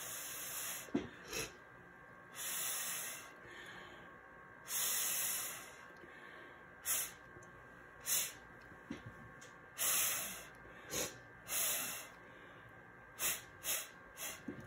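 Breath blown hard through a plastic drinking straw in a dozen or so separate hissy puffs, some about a second long and others short, spreading wet acrylic paint across a polymer clay slab.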